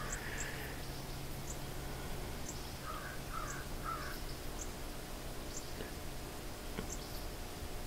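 Faint outdoor background of bird calls: three short calls in a row about three seconds in, over a short high chirp repeating about once a second. A faint low hum stops about four seconds in.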